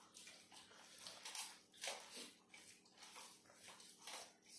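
Faint, irregular wet eating sounds: fingers squishing and mixing rice and chicken curry on steel plates, and mouths chewing, with a few brief louder smacks about one and two seconds in.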